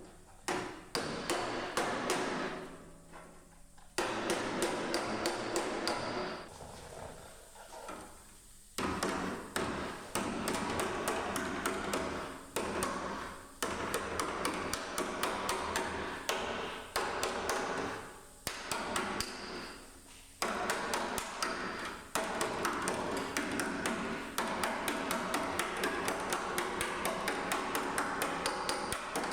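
Rapid hammering on sheet-metal car body panels, several strikes a second, in bursts of a few seconds with short pauses between.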